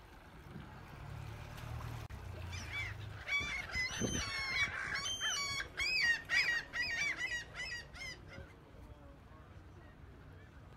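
A bird calling in a rapid series of short, high, arching cries from about two and a half seconds in until about eight seconds. A low rumble sits under the first three seconds, and a dull knock comes about four seconds in.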